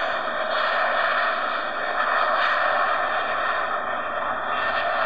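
Steady rushing jet noise from an Embraer E-Jet regional airliner's twin turbofan engines as it rolls down the runway on its takeoff run.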